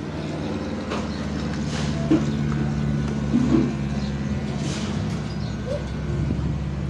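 Electric pet hair clippers running with a steady hum as they shave a Maltese dog's long white coat down short.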